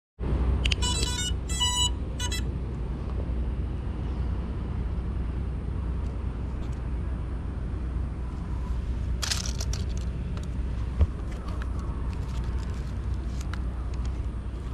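A short series of electronic startup beeps from a small FPV quadcopter as its battery is connected, followed by a steady low rumble. There is a brief rustle about nine seconds in and a single knock about two seconds later.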